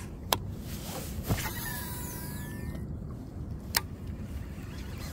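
Shimano Curado DC baitcasting reel on a cast: the spool spins with the whine of its digital-control brake, falling in pitch as the spool slows. Three sharp clicks from the reel come near the start, about a second in, and near four seconds.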